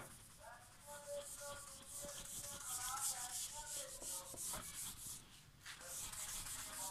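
Whiteboard eraser rubbing back and forth across a whiteboard, wiping off marker writing in quick, hissing strokes, with a brief pause about five and a half seconds in.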